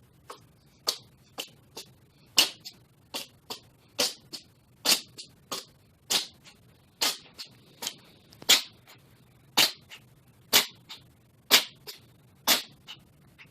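A cat sneezing over and over in a long run of short, sharp sneezes, the loud ones about once a second with weaker ones in between.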